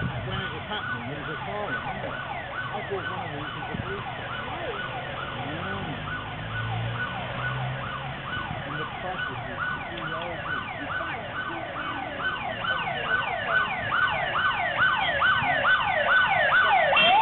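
Emergency vehicle siren in fast yelp mode, its pitch sweeping about three times a second, growing louder toward the end as the vehicle approaches.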